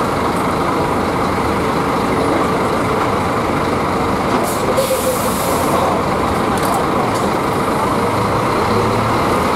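Buses idling with a steady engine hum, and a short hiss of compressed air from a bus's air system, about a second and a half long, starting about four and a half seconds in.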